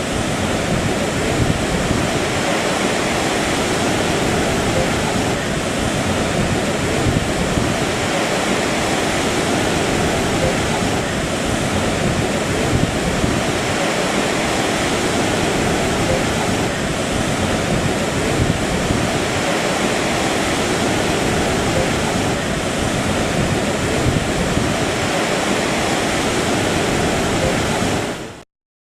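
Rushing, churning water of the Hooghly's incoming tide, a steady loud noise of waves and current that cuts off suddenly near the end.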